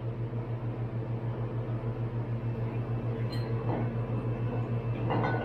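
Steady low machine hum that pulses about five times a second, with a sharp click near the end.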